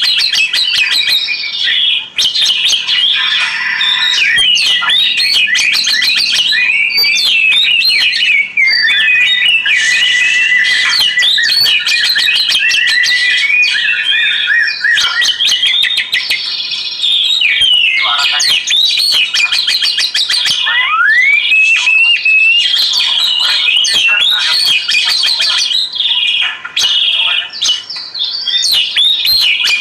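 Oriental magpie-robin (kacer) singing a loud, varied song of rapid whistles, sweeping notes, trills and chirps, almost without a break.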